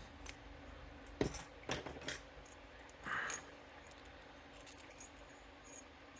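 Faint metallic clicks and clinks of a Zarker A40 aluminium-body padlock being handled and turned over, with a brief scrape about three seconds in.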